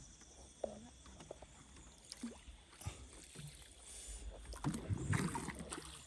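Quiet river water moving around a drifting raft: gentle lapping and splashing with a few small knocks, a little louder about three-quarters of the way through.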